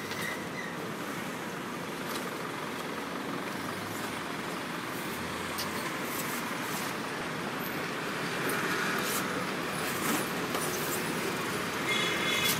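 Street traffic noise: a steady hum of passing cars, with a few faint clicks and a brief high squeak near the end.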